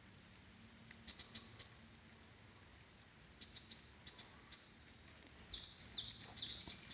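Light rain pattering, with scattered small ticks of drops. Near the end a bird calls with a quick run of short high notes that alternate between two pitches.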